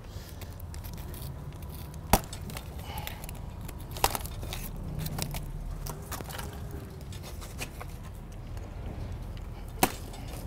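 Zip ties on a boxed bicycle being cut with a utility knife: three sharp snaps, about two seconds in, about four seconds in, and near the end.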